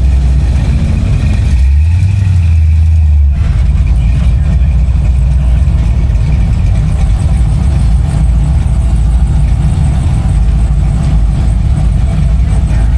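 Car engine running at idle, with a brief rise about two seconds in.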